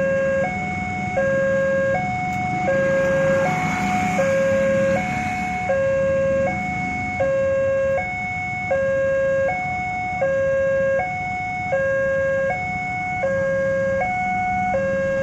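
Indonesian railroad crossing warning alarm sounding its electronic two-tone signal, alternating steadily between a low note and a slightly higher note about every three-quarters of a second, the warning that a train is approaching and the crossing is closed.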